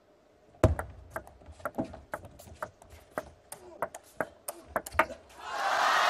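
Table tennis rally: the ball clicks sharply off paddles and table in a quick back-and-forth, about three hits a second. Near the end the rally stops and crowd noise swells up loudly.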